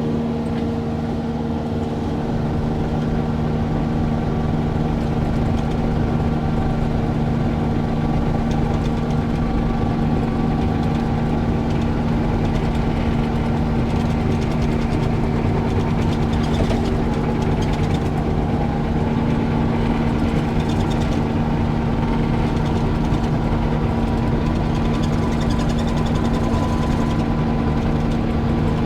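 Excavator's diesel engine running steadily at a constant speed, with a low rumble underneath.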